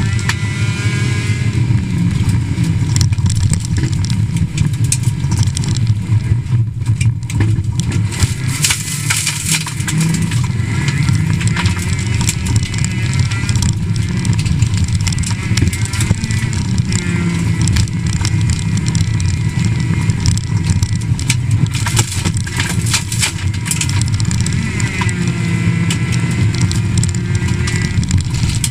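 Rally car engine, heard from inside the cabin, revved hard through the gears, its pitch climbing and then dropping at each shift or lift. Gravel crackles and rattles against the underbody, thickest about a third of the way in.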